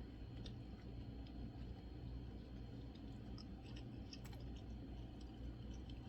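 Faint chewing of hot instant ramen noodles, with scattered small mouth clicks over a low steady hum.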